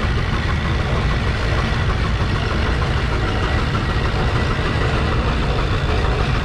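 Case steam traction engine running steadily under load, pulling a gang plow.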